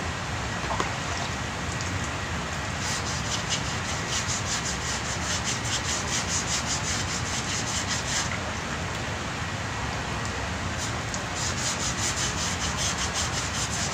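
Hand sanding block scraping back and forth over body filler on a pickup's steel front fender, in quick rhythmic strokes of several a second. The strokes start about three seconds in, pause briefly past the middle, then pick up again. This is the final putty coat being block-sanded smooth to follow the fender's curve.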